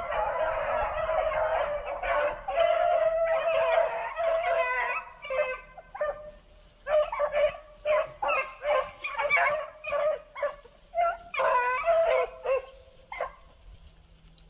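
Pack of beagles baying: dense, overlapping howls that break up from about five seconds in into separate short bays, several a second, stopping shortly before the end.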